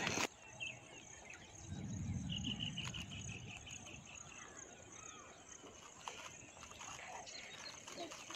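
Potato slices deep-frying in hot oil in a pan over a wood fire: a soft steady sizzle with faint crackles. A steady high insect trill runs behind it, with a short run of rapid chirps about two seconds in. A brief louder noise cuts off at the very start.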